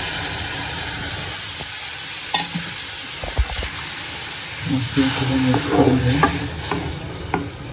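Milk sizzling as it is poured into a hot pan of ghee-roasted vermicelli, the hiss slowly dying down. From about halfway, a spatula scrapes and knocks against the pan as the mixture is stirred.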